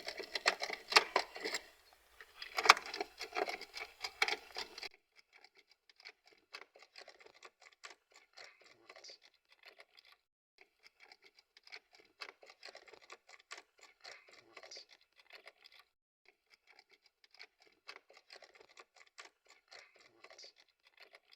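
A car key and its parts clicking and rattling as they are handled, sharpest in the first five seconds, then fainter scattered clicks and scrapes.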